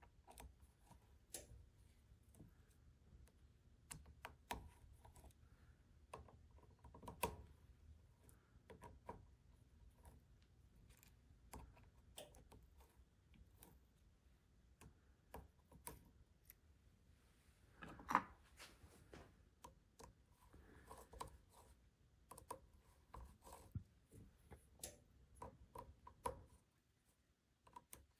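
Faint, scattered clicks and light metal taps of scope-ring caps, screws and a lapping tool being handled as the rings are taken apart, with one sharper knock about two-thirds of the way through. A faint low hum underneath stops near the end.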